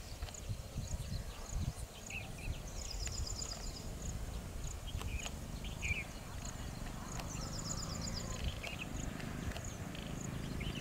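Low, uneven rumble of an electric-hauled train still some way off and approaching, with birds chirping and giving short rapid trills now and then.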